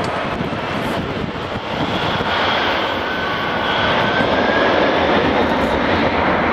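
The three turbofan engines of a McDonnell Douglas MD-11F freighter running up loud for takeoff, growing steadily louder, with a high whine that rises slightly in pitch in the middle.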